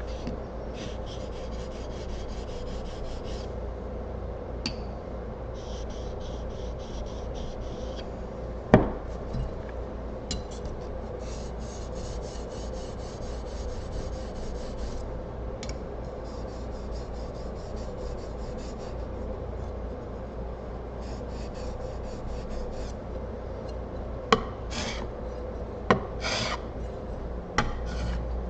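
A steel plane blade rubbed rapidly back and forth across an abrasive sharpening surface, honing its bevel, in runs of strokes a few seconds long with short pauses between. A few sharp knocks come about nine seconds in and again near the end.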